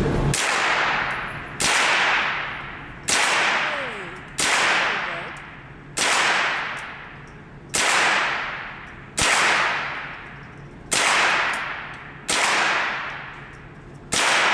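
Smith & Wesson M&P 15-22 semi-automatic .22 LR rifle firing a slow, steady string of about ten single shots, roughly one every second and a half. Each crack rings out in the long echo of an indoor range.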